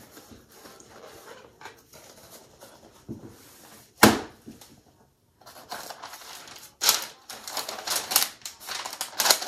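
Cardboard wig box being handled and opened, with a single sharp knock about four seconds in, then tissue paper rustling and crinkling with sharp crackles as it is pulled out of the box.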